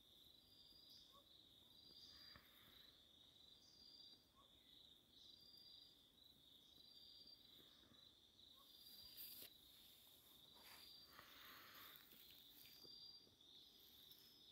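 Faint insects calling in an open field: a steady high-pitched trill with a second short chirp repeating about once a second. A brief click about nine seconds in.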